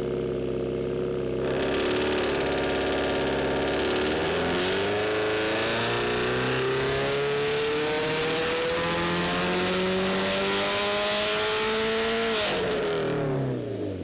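Turbocharged 2018 Subaru WRX STI's 2.5-litre flat-four under hard acceleration. Its note dips briefly about four and a half seconds in, then climbs steadily in a long pull and falls away sharply near the end as the throttle closes.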